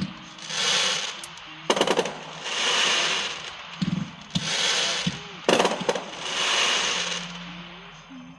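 Fireworks going off: about four swells of hissing crackle, each about a second long and about two seconds apart, with quick clusters of sharp bangs between them.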